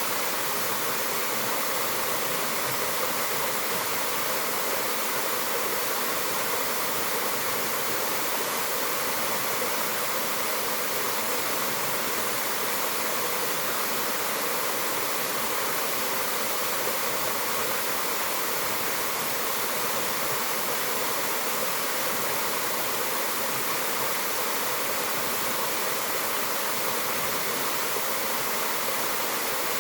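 Mountain waterfall pouring: a steady, unbroken rush of falling water.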